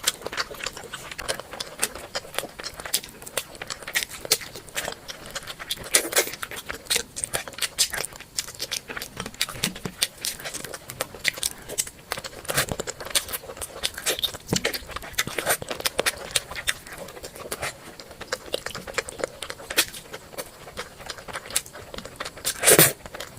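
Close-miked eating sounds: chewing and lip smacks making a dense run of small, irregular clicks, with one louder bite or slurp near the end.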